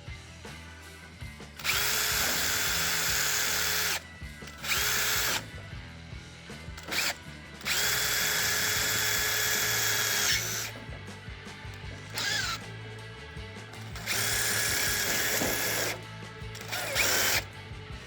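Power drill running in repeated bursts of one to three seconds, whining at a steady pitch and winding down as each burst stops, drilling holes to pop rivet a steel bracket. Background music plays underneath.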